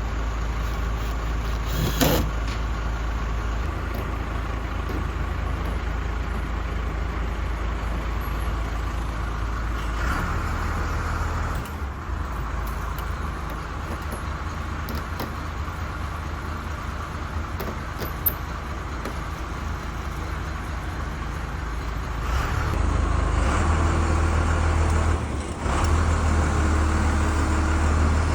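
An engine running steadily with a low hum, growing louder about 23 seconds in; a sharp knock about two seconds in.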